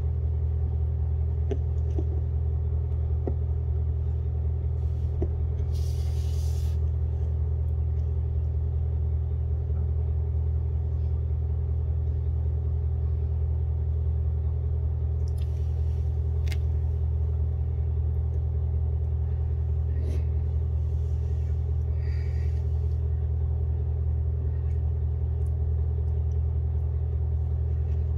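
Steady low hum at an even level throughout, with a few faint clicks and two or three short hisses.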